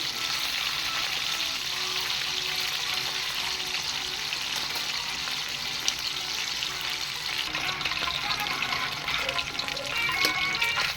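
Food frying in a pan with a steady sizzle.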